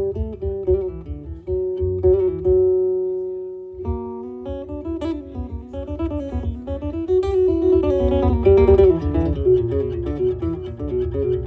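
Live acoustic band playing a waltz: strummed guitar and a low beat under a held, slowly moving melody line.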